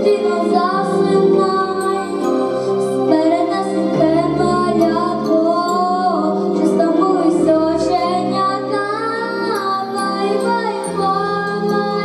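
A young girl singing a slow lullaby into a microphone, her voice wavering with vibrato, over an instrumental accompaniment of long held low notes.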